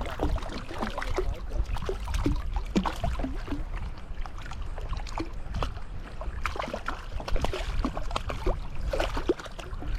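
A kayak on the water: small splashes and scattered light knocks and rattles against the hull, over a low steady rumble of wind on the microphone.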